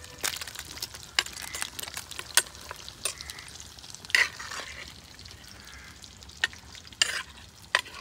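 Spoon stirring food that is frying in a pan, scraping and knocking against the pan several times over a soft sizzle.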